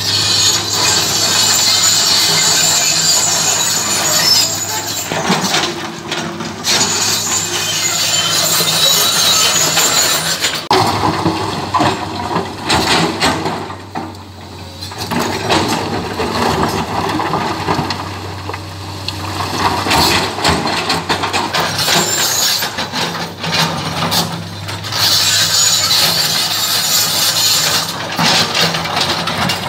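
Komatsu crawler excavator with its diesel engine running steadily while the steel bucket scrapes and shoves through broken rock. Stones clatter and grind against the bucket in bouts lasting a few seconds each.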